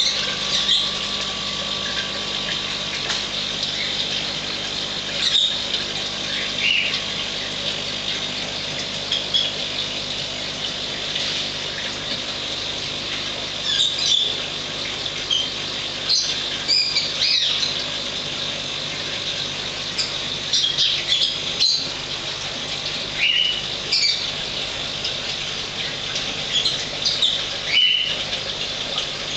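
Birds chirping in short high calls every second or two, over a steady low hum.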